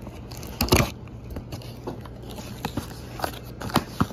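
Scissors cutting the packing tape on a cardboard box and the flaps being pulled open: a sharp snap about a second in, then scattered crackles and taps of cardboard.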